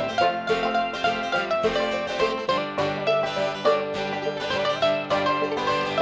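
Acoustic string band playing an instrumental folk-bluegrass introduction, with quick plucked string notes over strummed chords.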